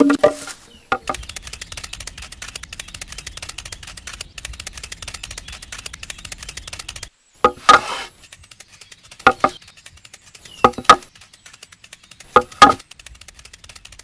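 A small motor-driven DIY wood-cutting machine runs with a fast, even rattling clicking over a low hum for several seconds, then stops suddenly. After it come four short, sharp double sounds, each about a second and a half apart.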